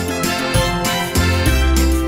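Background music with a steady beat and a bass line, playing under the end screen.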